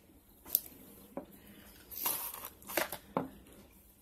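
A clear plastic drinking cup and other things being handled on a table: a sharp click about half a second in, a lighter tap, then a rustle and a few light knocks.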